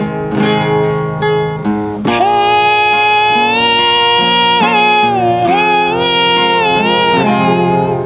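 Acoustic guitar picking alone, then a woman's voice comes in about two seconds in, singing long held notes over the guitar.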